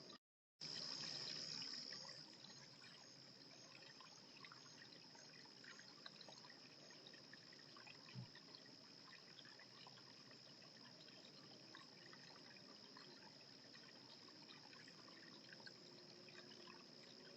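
Faint trickling water with small scattered ticks, under a steady high-pitched insect-like hum; the sound drops out completely for a moment near the start.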